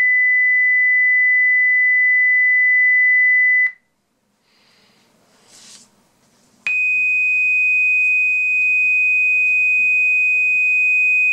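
Steady, high-pitched sine-wave test tone from a sound-card signal generator, cutting off about four seconds in. After a short gap with a brief rustle, a second steady tone a little higher in pitch starts about two-thirds of the way through.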